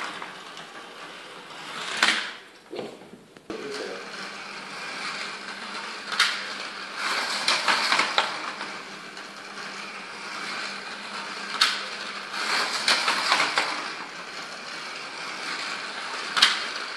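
Slot cars running round a plastic slot-car track: small electric motors whining and wheels rattling along the track, swelling and fading as the cars come and go. Four sharp clacks stand out.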